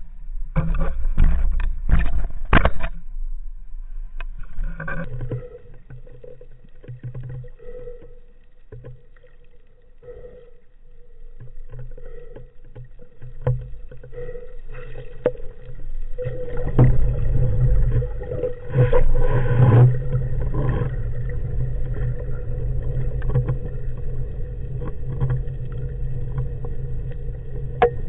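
Muffled sea-water sounds from a spearfishing camera: splashing and sloshing that surge loudly at the start and again in the second half, over a steady low hum.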